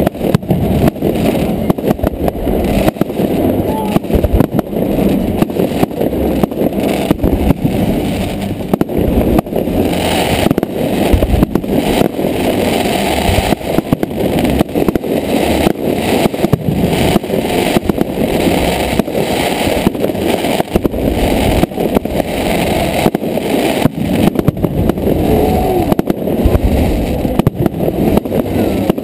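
Fireworks display: a continuous, dense barrage of bangs and crackles, the explosions following one on top of another with no break, heavy in the low end.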